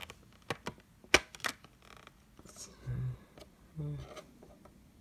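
Clear plastic blister tray of a Pokémon card tin clicking and crackling as it is handled, with several sharp clicks in the first second and a half, the loudest about a second in. Two short low hums come near the middle.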